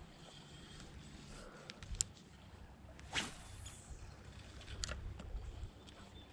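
Fishing rod and reel being cast: a short swish about three seconds in, with small sharp clicks a second before and more near the end, over a faint low rumble of creek water and wind.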